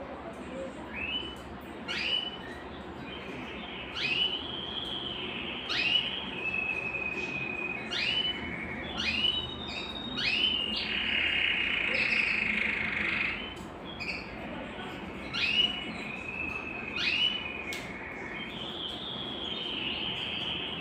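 Domestic canary (Belgian canary) singing: a run of notes that each sweep up sharply and level off into a held high whistle, coming every second or two, with a longer buzzy rolled phrase around the middle.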